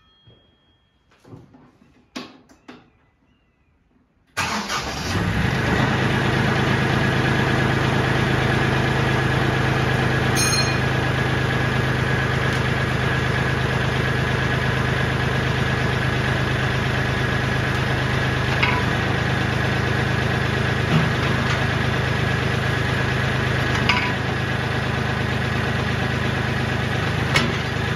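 A few faint clicks, then about four seconds in the diesel engine of a Kioti CK4010SE compact tractor comes in suddenly and runs steadily at idle.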